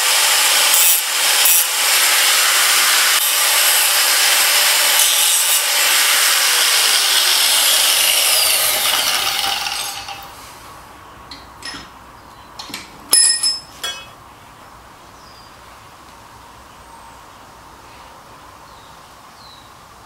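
A 4.5-inch angle grinder cutting through a metal bar held in a vise: a steady, high grinding for about ten seconds that then dies away. A few metal clinks follow as the cut pieces are handled, one ringing sharply about thirteen seconds in.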